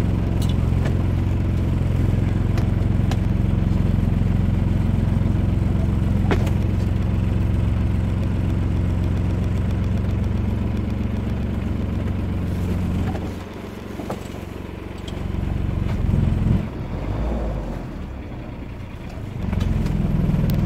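A Westerly Fulmar sailing yacht's inboard engine running at low revs while coming alongside a pontoon. It drops in level about two-thirds of the way in and picks up again near the end, in step with the throttle changes of a docking manoeuvre.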